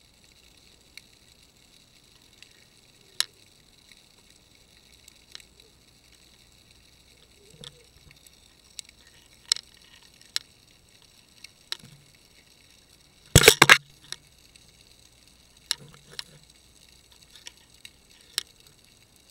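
Sharp clicks and taps heard through an underwater fishing camera's waterproof housing on the seabed: about a dozen scattered single clicks, and a loud rapid cluster of knocks about two-thirds of the way in, over a steady faint hiss.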